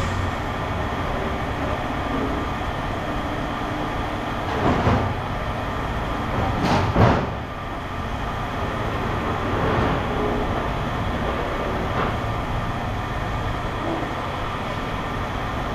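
Steady mechanical rumble of running machinery, with a few short knocks over it, the loudest about seven seconds in.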